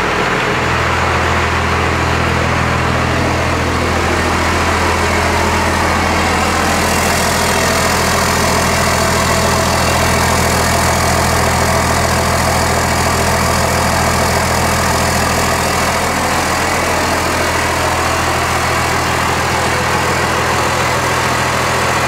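Cummins diesel engine idling steadily, heard through its 5-inch exhaust with a 4-inch downpipe.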